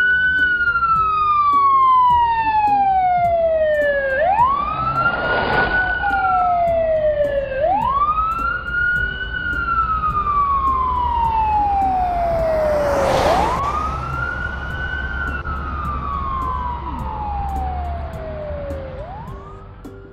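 Police siren wailing: each wail climbs quickly and then slides slowly back down, repeating about every four to six seconds. It fades near the end.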